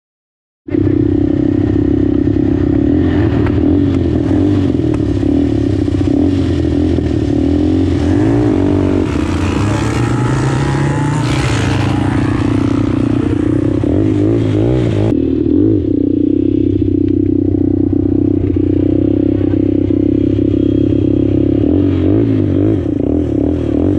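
Quad bike (ATV) engine running hard under way, cutting in about a second in, its revs rising and falling as it is ridden over a rough dirt track.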